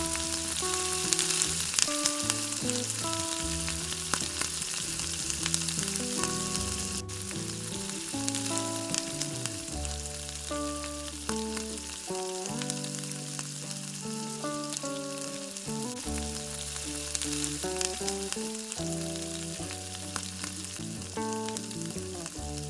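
Gulab jamun dough balls deep-frying in hot oil: a steady, dense sizzle of bubbling oil, with plucked-string background music over it.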